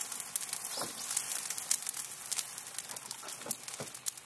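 Campfire of burning wood crackling, with frequent irregular sharp pops and snaps.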